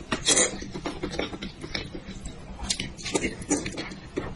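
Close-miked eating sounds of someone gnawing and sucking meat off a piece of braised sheep's head: irregular wet smacks, sucks and chewing clicks, loudest at the very start.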